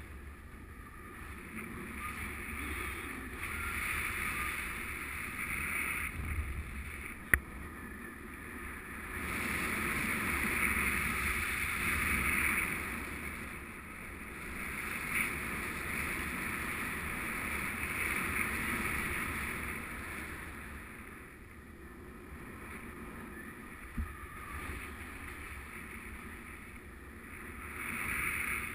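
Airflow of a paraglider in flight rushing over the camera microphone, swelling and easing in waves. A sharp click about seven seconds in and a smaller one near twenty-four seconds stand out.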